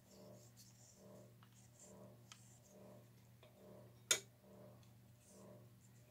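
A faint low hum that pulses about twice a second, with one sharp click about four seconds in as a small object is set down on the paint-spattered painting table.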